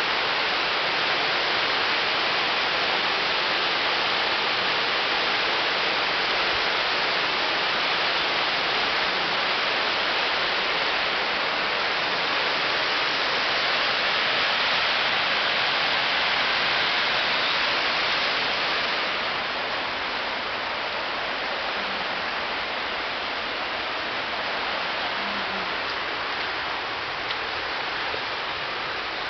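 Steady rush of running water, like a mountain stream or torrent close to the path. It drops a little in loudness about two-thirds of the way through.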